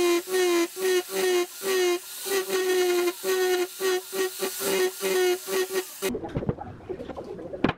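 Angle grinder fitted with a sanding drum, sanding the curved edge of a wooden table leg in short repeated strokes. Its whine sags in pitch each time the drum is pressed into the wood. The whine stops about six seconds in, leaving a quieter stretch with one sharp knock near the end.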